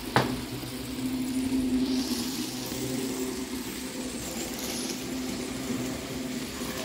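N-scale model train running fast at throttle setting 8: the locomotive's small electric motor hums steadily as the train runs on the track. There is a single sharp click just after the start.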